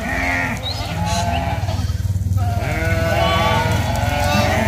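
A herd of goats bleating, many calls overlapping continuously over a steady low rumble.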